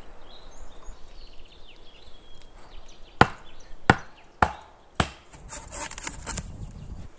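Wood being chopped with a bladed hand tool: four sharp strikes about half a second apart, then rustling.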